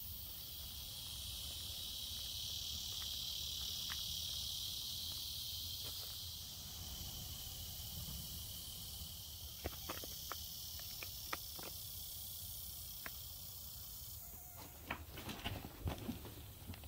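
Steady, high, droning chorus of summer insects over a low rumble, with a few faint clicks. A couple of seconds before the end the insect sound stops and gives way to close, scattered knocks and rustles.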